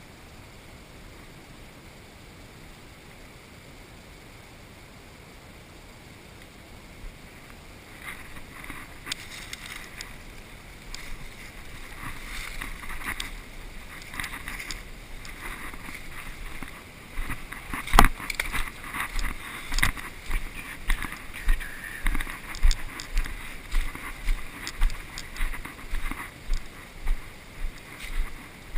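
Rustling and handling noise on the microphone. In the last ten seconds it turns into a steady run of footsteps, about one a second.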